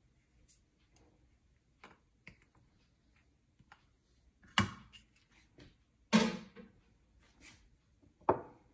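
A plastic tub and spatula clacking and knocking against a plate as a paste is scraped out onto raw chicken, with faint ticks and three sharp clacks in the second half.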